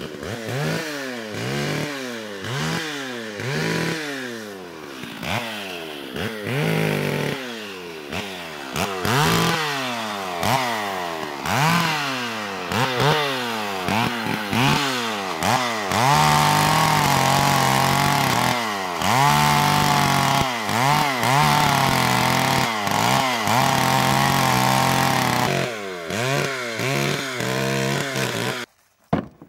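Gas chainsaw revved up and down about once a second as its chain bores into the top of a log round, hollowing it out to hold deer mineral. Through most of the second half it is held at high revs with brief dips, then it stops abruptly near the end.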